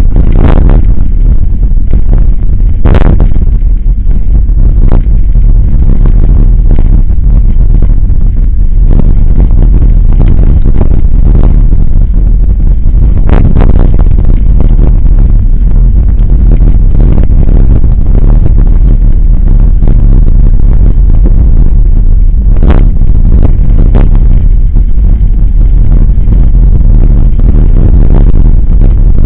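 Mountain bike rolling over a wet gravel dirt road, heard from a camera mounted by the front wheel: a loud, steady rumble of tyre and wind noise on the microphone. A few sharp knocks and clatters of the bike jolting over stones come through it.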